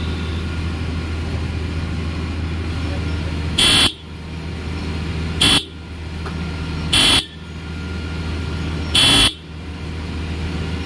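TVS Apache RR 310's electric horn sounding four short honks a second or two apart, the last a little longer, over a steady low hum.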